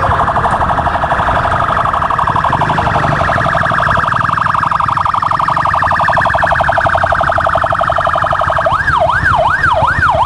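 Electronic siren sounding with a rapid pulsing warble, switching about nine seconds in to a quicker rising-and-falling yelp, over a low rumble.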